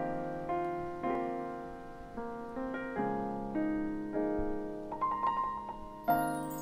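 Piano chords played on a stage keyboard, each chord struck and left to ring and fade, a new one every half second to a second, with a brighter chord near the end.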